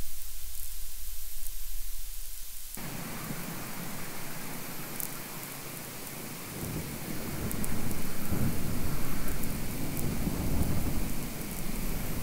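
Wind buffeting an outdoor microphone in gusts: a dense rumbling rush that starts suddenly about three seconds in and swells strongest midway. Before it, a low steady electrical hum with faint high clicks, as picked up by an electromagnetic field recorder.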